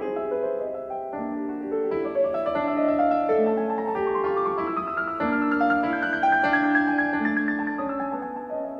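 Background piano music: a melody of held notes over chords, moving at an unhurried pace.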